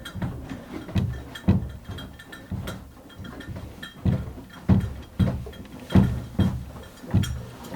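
A series of irregular heavy thuds and knocks, about a dozen in eight seconds.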